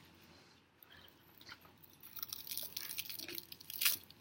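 Seaweed being chewed close to the microphone: irregular crisp crunching and crackling, with one sharper, louder crunch near the end.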